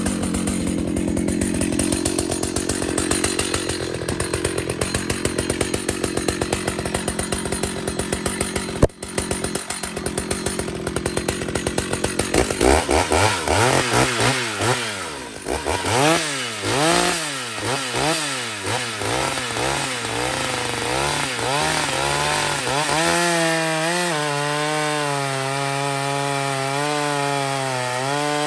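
Gasoline chainsaw cutting through a large log. It runs steadily for the first several seconds, then revs up and down over and over, and from about two-thirds of the way in it holds at high revs with the pitch wavering under load.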